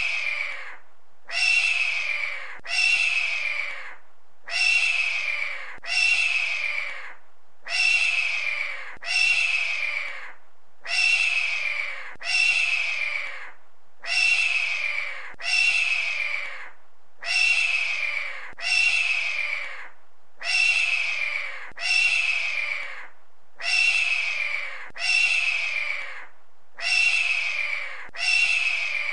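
Hawk screaming over and over, a harsh call about every second and a half, some coming in quick pairs. Each call starts sharply and tails off.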